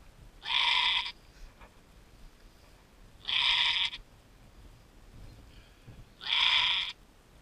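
A doe goat in labour bleating loudly three times, about three seconds apart, each cry lasting well under a second, while straining to deliver a kid.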